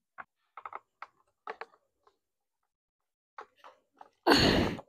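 Gloved hands working at a motorcycle's wiring and plastic body parts: scattered small clicks and taps, then a loud rustling scrape lasting about half a second near the end.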